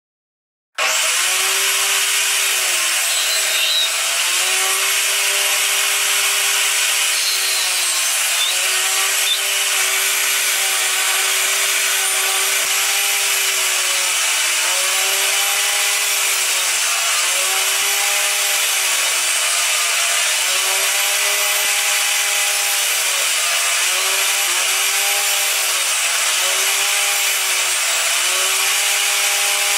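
Table saw running and cutting slots into the end of a wooden board clamped upright on a sled. The saw starts about a second in, and its hum wavers up and down in pitch every couple of seconds as the board is passed over the blade.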